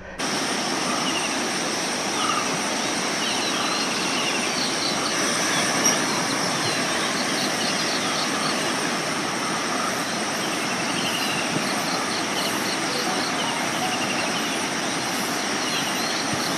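Steady rush of river water flowing over rocks below a waterfall, with faint high-pitched chirping on top.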